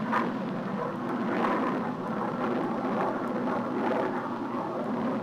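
Jet noise from a formation of Grumman F11F Tigers with Wright J65 turbojets passing overhead: a rushing noise that swells and eases several times, with a steady low hum underneath.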